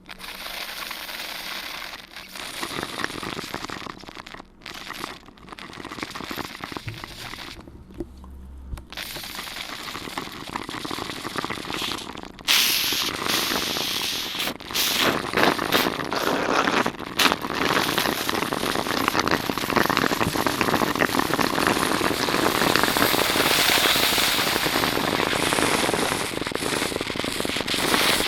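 Everyday household objects (crumpled paper and plastic bags, chopsticks tapping a plastic tray) crackling and pattering to imitate rain, the opening of a homemade storm soundscape. It starts sparse with short breaks, then about twelve seconds in turns suddenly louder and denser, like a downpour setting in.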